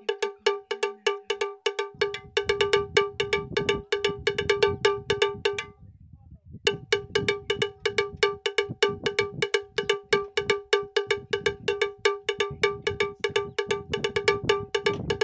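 A bell-like metallic tone struck rapidly and evenly, several strikes a second at one pitch, like a cowbell pattern. It breaks off for just under a second about six seconds in, then carries on.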